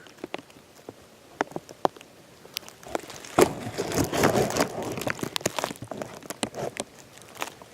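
Scattered sharp crackles and rustling, with a denser stretch of rustling about three and a half seconds in.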